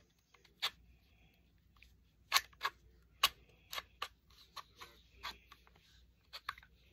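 Irregular small metallic clicks and knocks of Desert Eagle .44 Magnum pistol parts being handled and fitted together during reassembly, a dozen or so, the sharpest about two and a half and three and a quarter seconds in.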